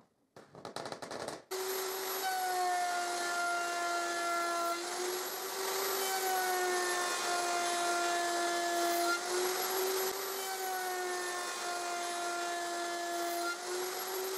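Electric router in a router table running at full speed, a steady high whine, as its bit mills a tenon in a wooden workpiece pushed past it on a tenoning jig. The whine comes in about a second and a half in, and its pitch sags slightly now and then as the bit cuts into the wood.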